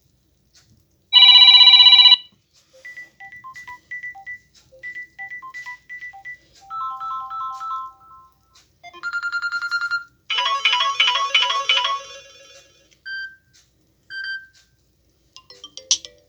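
A string of short Samsung Galaxy A12 ringtones played one after another: electronic melodies and beeps, each a second or a few long, with brief gaps between them. The loudest is a dense one-second tone burst about a second in.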